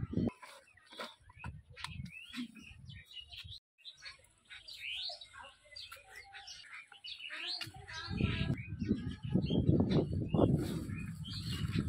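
Small birds chirping and tweeting in many short, quick calls. In the last few seconds a louder, rough scuffing and rustling noise comes in.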